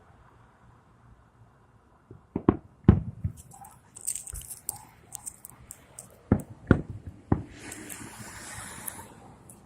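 Fireworks going off: a cluster of sharp bangs about two and a half seconds in and another around six to seven seconds in, with high sputtering crackle in between and a hissing crackle near the end.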